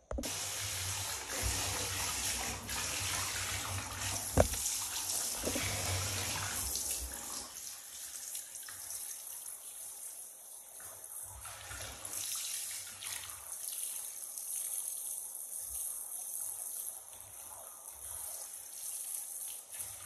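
Handheld shower sprayer running, water spraying onto a dog's coat and splashing into the bath water. It starts abruptly, runs louder for the first several seconds and then softer, with a single sharp knock about four seconds in.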